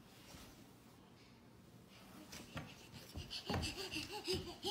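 Quiet room tone, then from about two seconds in a run of soft knocks and taps, joined in the last second or so by short, high vocal sounds that bend up and down.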